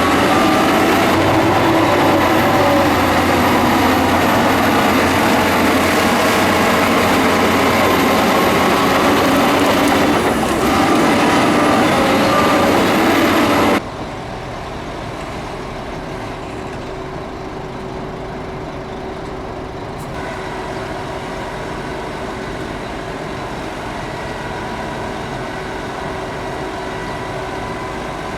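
Heavy diesel earthmoving machinery running under load. About halfway through, the level drops suddenly to a quieter, steadier engine sound.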